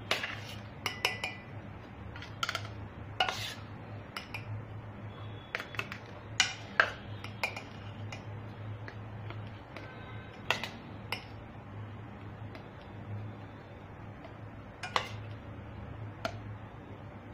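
Steel spoon clinking and scraping against a steel bowl and small steel kulfi moulds as the ice-cream mixture is scooped into them. About a dozen scattered, irregular clinks, over a low steady hum.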